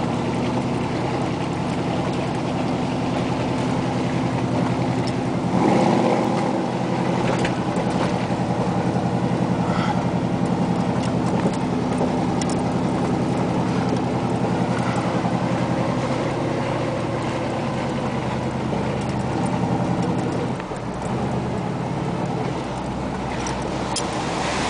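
A 4x4 truck's engine running steadily while driving, heard from inside the cab, with a few short knocks and rattles. The engine swells briefly about six seconds in.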